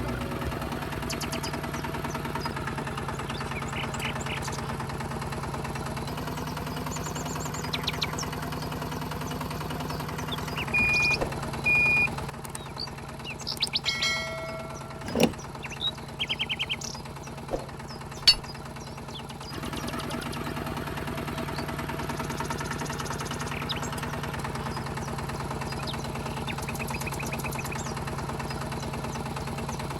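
Small electric motor of a DIY mini tractor running with a steady hum. It stops for several seconds in the middle, when a few clicks and knocks are heard, then runs again.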